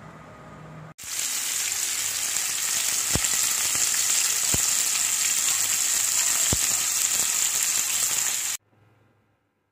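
Slices of spice-marinated seer fish shallow-frying in oil on an iron tawa: a loud, steady sizzle that starts suddenly about a second in, with three sharp pops of spitting oil, and stops abruptly near the end.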